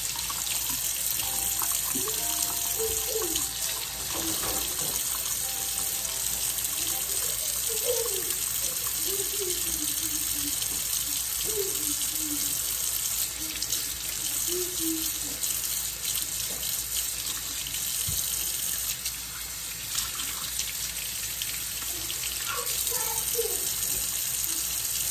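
Kitchen faucet running steadily into a sink, the stream splashing over an egg held under it.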